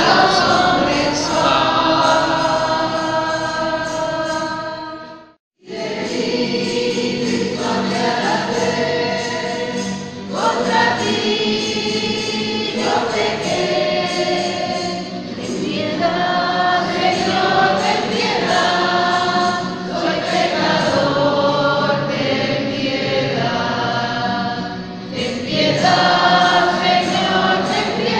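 A choir singing a religious hymn; the sound cuts out completely for a moment about five seconds in, then the singing carries on.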